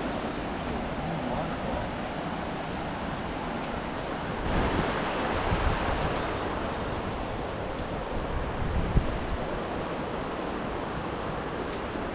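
Steady rushing of river water, with wind buffeting the microphone in low gusts, strongest about four to six seconds in.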